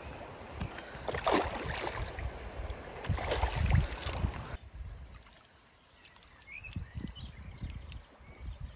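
Shallow stream water splashing as a released rainbow trout kicks away, with two louder splashes about one second and three and a half seconds in. At about four and a half seconds the sound cuts abruptly to a much quieter stretch with faint low rumbles.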